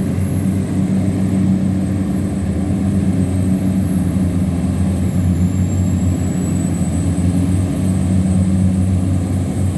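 Big diesel engine of a river tugboat running hard under load, a loud steady low drone, as it tows loaded cargo barges upstream against the current.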